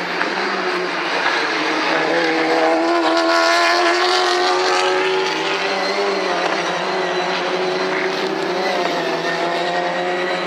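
Engines of touring race cars running at high revs on track, more than one engine at once, their pitch rising about two to four seconds in and then holding steady.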